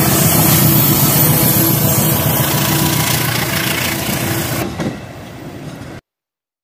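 Battery-powered toy train running close by on plastic track, a loud steady mechanical rattle and whir. It drops away sharply near the end, then cuts to silence.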